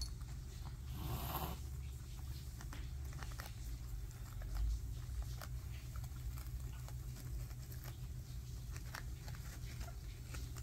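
Guinea pigs munching fresh greens and hay: a steady run of small crisp crunches and clicks over a low hum, with a brief rustle about a second in.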